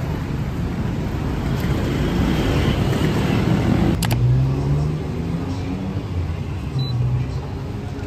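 Street traffic: a passing vehicle grows louder over the first few seconds, then an abrupt change about four seconds in leaves a lower, steady engine hum.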